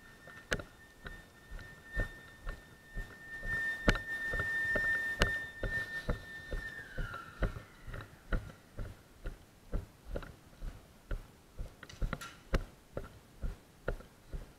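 Footsteps of the camera wearer walking on gravel, about two steps a second. Behind them a steady high tone holds and then slides down in pitch and fades about seven seconds in.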